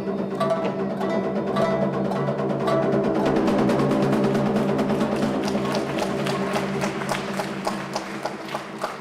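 Instrumental accompaniment for a Tokiwazu dance piece: steady held tones with a drum and many quick, sharp wooden-sounding strokes that come thicker in the second half.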